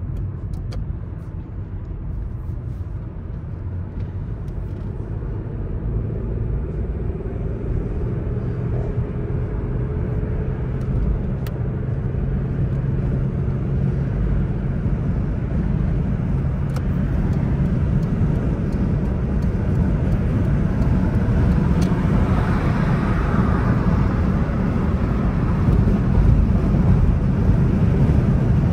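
A car driving, with a steady low road and engine rumble that grows gradually louder.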